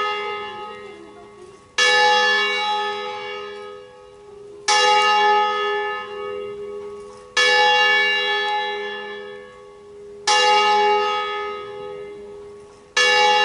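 The smallest bell of a five-bell church ring, cast by Roberto Mazzola, swinging on its wheel in full swing-ringing (distesa). The clapper strikes five times, about every two and a half to three seconds, and each stroke rings on and fades before the next.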